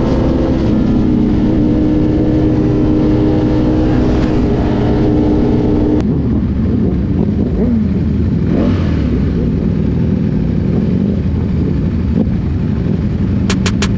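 Sport motorcycle's engine heard from the rider's seat, running at a steady cruise for the first few seconds. After an abrupt cut it runs lower and rougher, its pitch gliding up and down as the bike rolls slowly.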